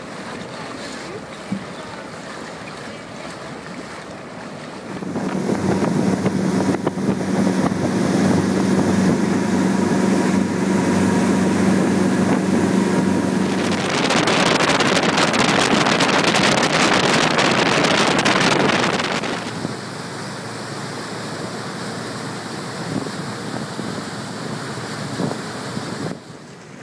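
A zodiac's outboard motor opening up about five seconds in and running at speed, with wind buffeting the microphone and the wake hissing and churning. The rush of wind and water is loudest for a few seconds past the middle, then eases to a lower, steady rush.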